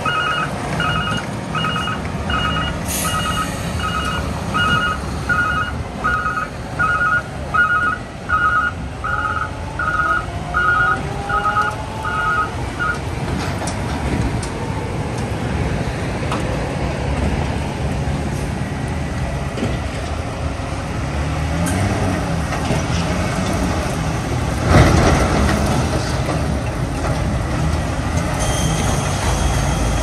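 A heavy truck's reversing alarm beeping steadily, a little more than once a second, for about the first 13 seconds over the diesel engines of concrete mixer trucks. The truck engines run on after that, one rising in pitch around 10 seconds, with a short loud burst of noise about 25 seconds in.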